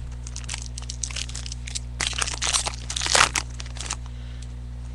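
Crinkling and crackling of trading cards and their packaging being handled, with a dense cluster of sharp crackles from about two seconds in, over a steady electrical hum.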